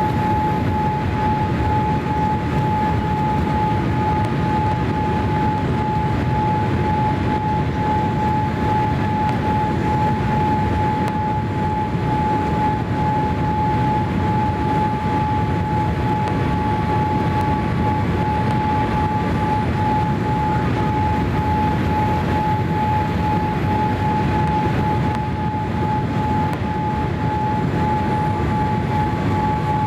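Steady airliner cabin noise inside a Boeing 787-8 Dreamliner: a constant rumble and rush of air, with the Rolls-Royce Trent 1000 engines adding a steady high whine.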